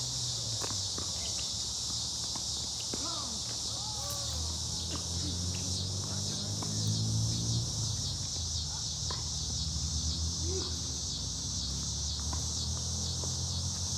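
Steady, unbroken high buzzing of an evening insect chorus, with a low rumble underneath and a few faint knocks.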